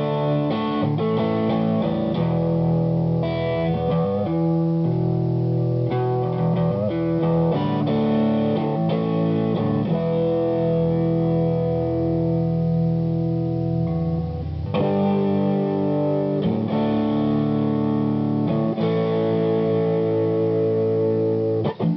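Electric guitar played through an Ibanez TS808HW Tube Screamer overdrive pedal into a valve amp: mildly overdriven chords and single notes, with held, sustaining notes and a fresh attack about two-thirds of the way in.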